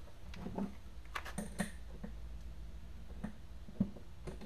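Irregular light metal clicks and knocks of a wrench and hydraulic hose fitting being handled on a wooden workbench, the sharpest about a second and a half in and again near the end, over a steady low hum.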